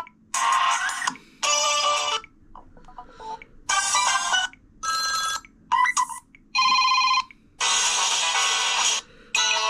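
Samsung Vibrant phone's speaker playing short previews of one alarm tone after another. There are about eight different snippets, each under a second long, with brief gaps between them.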